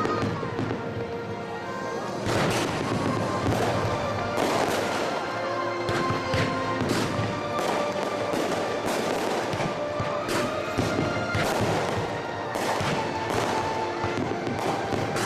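Aerial fireworks shells bursting in rapid, overlapping succession, growing dense about two seconds in, over music.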